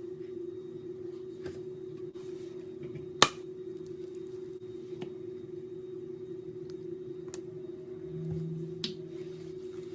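A steady hum with a few sharp clicks over it, one much louder than the others about three seconds in.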